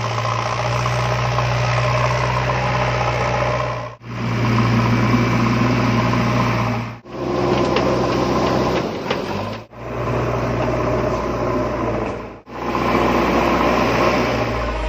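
A small motor running steadily with a steady hum, heard in several short stretches that break off abruptly at cuts.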